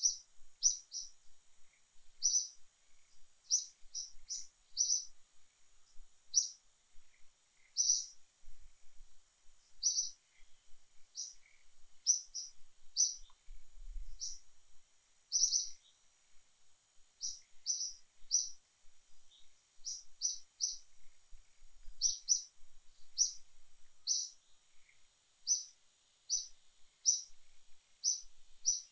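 A small bird chirping again and again: short high notes, often in quick twos and threes, about every second, over a faint steady high hiss.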